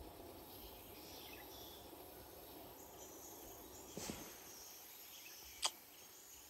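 Faint riverside ambience with insects chirping high and thin. A soft thump comes about four seconds in, and a single sharp click, the loudest sound, comes nearly six seconds in.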